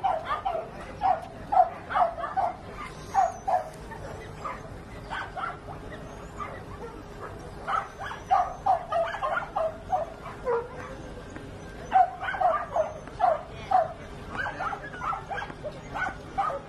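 A dog barking in quick runs of short, sharp barks, broken by pauses of a second or two.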